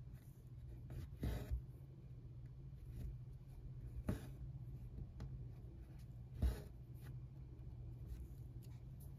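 Hand cross-stitching: needle and embroidery floss drawn through 25-count Lugana evenweave fabric, with three louder pulls of the thread a couple of seconds apart and small faint taps in between. A steady low hum runs underneath.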